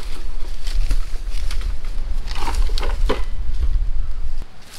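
A long wooden pole jabbed into a coconut palm's crown to knock coconuts loose: about five sharp cracks and knocks of wood against the fronds and stems, over a steady low rumble.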